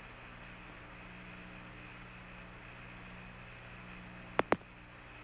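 Open radio communications line with no voice on it: steady static hiss with a low hum and a faint high whistle. Two sharp clicks come in quick succession near the end.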